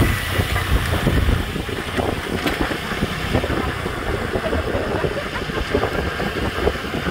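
Wind buffeting the microphone of a camera carried on a moving bicycle: a rough, fluttering rumble, heaviest in the first second or so, then easing to a steady rush.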